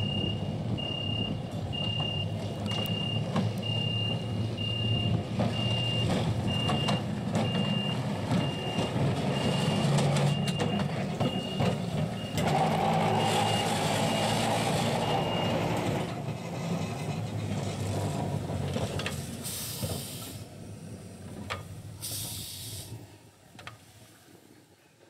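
Victorian Railways tram No. 41 running on its track with a low rumble, while a high electronic beep repeats steadily until a little past halfway. Two short hisses of air come near the end as the rumble fades away.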